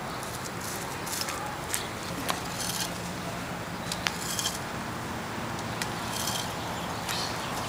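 Small hand garden tools scraping and crunching into wood-chip mulch and soil: scattered short scrapes and clicks over a steady background hiss.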